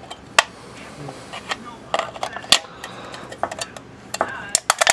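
Thin aluminium soda can being cut with an X-Acto knife: irregular sharp clicks and crinkles of the metal, coming quickly several times near the end.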